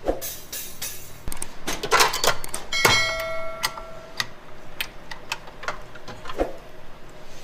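Metal clanks and knocks of a stainless steel mixing bowl and wire whisk being handled and fitted onto a stand mixer. One clank about three seconds in leaves the bowl ringing briefly.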